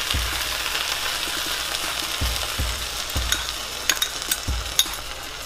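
Beaten eggs poured into a hot non-stick frying pan of wilted spinach, sizzling steadily, with a few sharp crackles and pops between about three and five seconds in.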